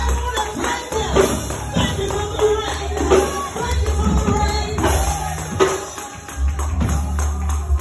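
Church praise music with sharp, rhythmic percussion over a deep bass line.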